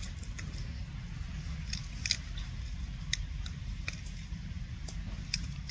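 Scattered crisp crackles and snaps of dry leaves as a macaque handles and bites at them, a few at a time with gaps between, over a steady low rumble.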